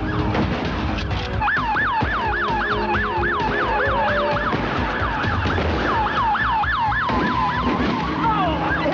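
Police car siren in yelp mode, sweeping up and down about four times a second. It breaks off briefly halfway, resumes, then holds a steady tone and falls away near the end.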